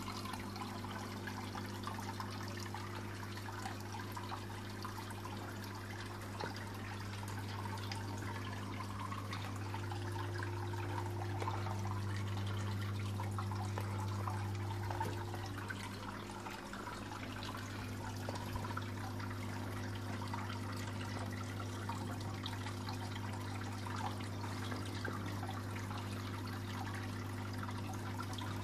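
Water trickling and splashing steadily into a raised garden koi pond, over a steady low hum.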